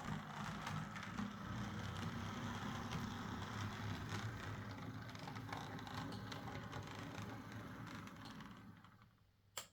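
Bachmann OO gauge Class 47 model locomotive running on track: a steady motor and gear hum with light clicking of the wheels on the rails, and no screeching, its worm-gear bearings freshly lubricated. The sound fades out near the end, followed by a single click.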